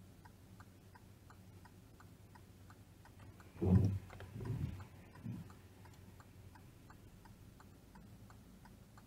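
Car's turn-signal indicator ticking steadily, a few ticks a second, while the car waits to turn. Around four seconds in, a windscreen wiper sweeps across the glass with a few dull thuds, the loudest sound here.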